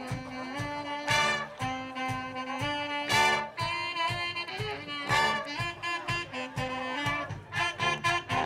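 Live brass band playing: trumpets, trombone and saxophone in short loud chords over a sousaphone bass line and a steady drum-kit beat.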